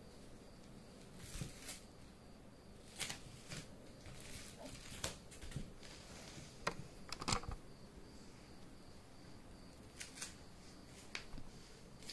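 Scattered light clicks and knocks of hard plastic Plarail scenery pieces being handled and set down on the toy track layout, in irregular ones and twos with the loudest cluster about seven seconds in.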